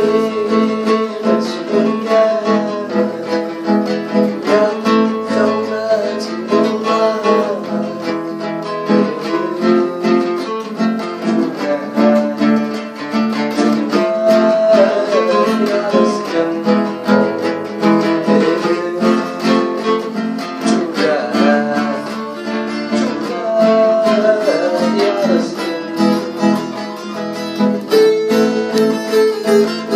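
Music led by acoustic guitar, played continuously.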